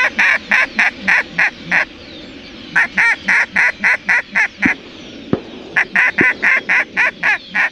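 Duck call blown by mouth in three runs of short, clipped notes, about four a second, each run lasting about two seconds with a pause between them.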